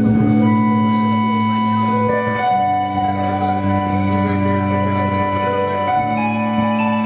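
Live rock band playing a slow passage of held chords. The chord changes about two and a half seconds in and again near the end.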